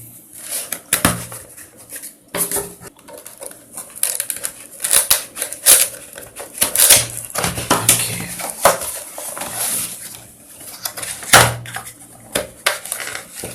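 A cardboard product box being opened and its packaging handled: irregular clicks, scrapes and knocks as the tightly packed box is worked open.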